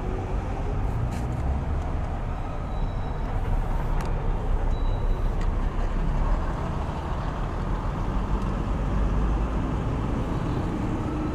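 Steady low rumble of street traffic, with a few sharp clicks.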